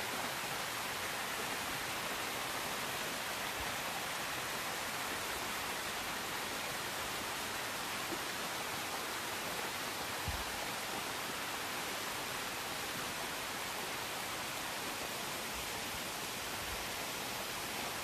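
Thin waterfall cascading down a mossy rock face into a shallow pool: a steady hiss of falling water.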